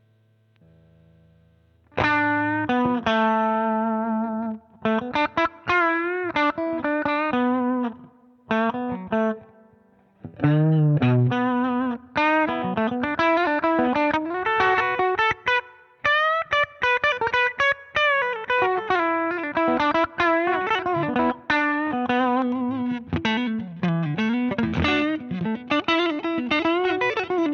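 Electric guitar played through a Danelectro Transparent Overdrive V2 overdrive pedal. After a near-quiet first two seconds, a chord rings out and decays, followed by phrases of single notes and chords with short breaks.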